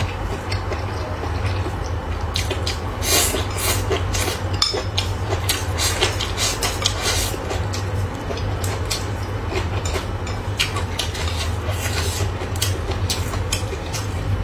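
Eating sounds: chopsticks clicking against bowls and plates in many short, irregular taps from about two seconds in, over a steady low hum.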